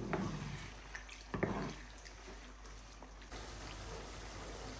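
Tomato paste, onion and bay leaves frying gently in oil in a nonstick pan, with a wooden spatula stirring and scraping through it; two sharper strokes of the spatula, one near the start and one about a second and a half in.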